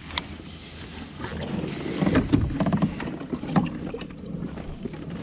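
Kayak on the water: water washing against the hull with the wind, and a few knocks and rattles of gear aboard, louder from about two seconds in.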